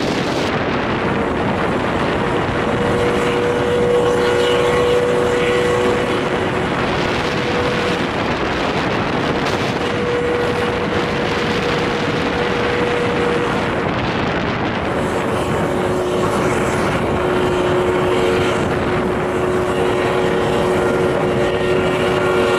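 Steady noise of trains at a station, with two low steady tones held for several seconds at a time that drop out and come back.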